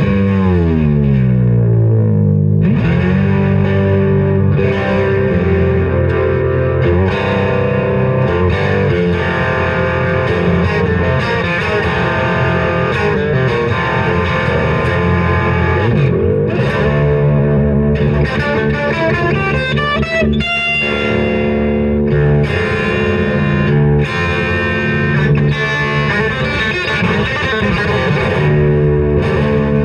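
Electric guitar played through distortion, fitted with a Guyker locking tremolo bridge. The pitch dives down over the first couple of seconds and wavers again about twenty seconds in, the kind of tremolo-arm use that tests whether the guitar stays in tune.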